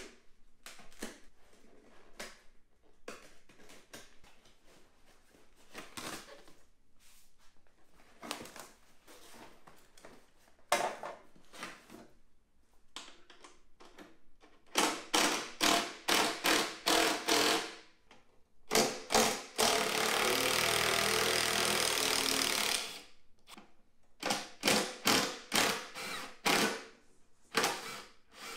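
Hand ratchet clicking in quick runs as the seat bolts on a go-kart frame are worked loose, with scattered clicks and knocks of tools on the steel frame. Around two-thirds of the way through, an aerosol can of WD-40 penetrating oil hisses for about three seconds onto the rusty bolts.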